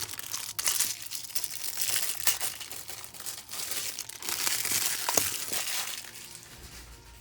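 Crinkling and rustling of plastic packaging being handled and opened, with many small crackles; it comes in two louder spells and fades near the end.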